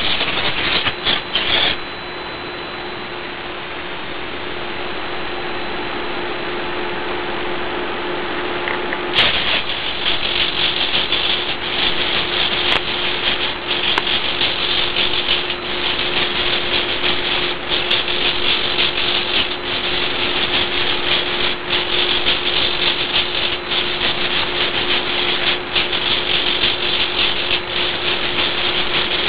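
The hobby servos of an 18-servo hexapod walking robot whirring and buzzing as it moves, over a steady hum. The servo noise becomes louder and busier from about nine seconds in.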